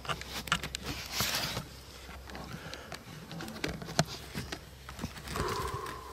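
Rustling, tapping and clicking as a camera is handled and turned inside a fabric ground blind, with a short swish about a second in. A brief pitched sound comes near the end.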